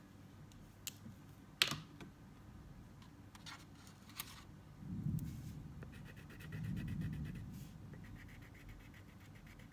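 Small plastic clicks and taps as crayons are handled and one is taken from a plastic crayon case, the sharpest click about one and a half seconds in, with a couple of dull bumps of handling. Then a wax crayon scratches on paper in quick strokes.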